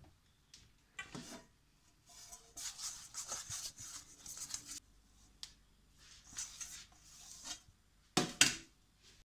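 Fingers rubbing oil around the inside of a nonstick metal cake tin: a dry, hissy rubbing in two stretches, a couple of seconds each. Near the end come two sharp knocks, the loudest sounds.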